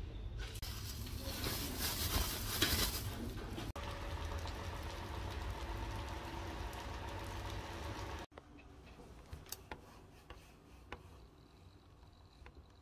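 Three short stretches of background sound: shop background noise, then steady rain patter on a wet street, then a quiet room with a few light laptop keyboard clicks.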